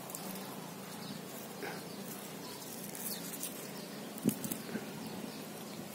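Outdoor garden ambience: a steady low hum with scattered faint high chirps, and a short sharp knock about four seconds in followed by a couple of softer ones.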